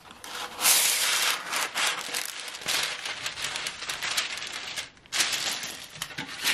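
Parchment paper pulled off its roll and torn from the box, then crinkling as it is spread and smoothed over a metal sheet pan, with a brief pause near the end.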